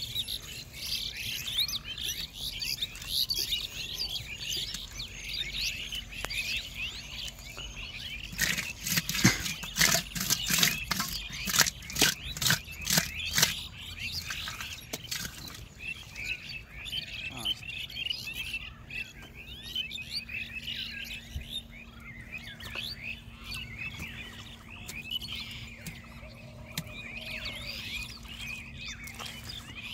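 A dense chorus of birds chirping, with many short high calls. From about eight seconds in, for some six seconds, a run of quick sharp knocks, several a second, stands out as the loudest sound.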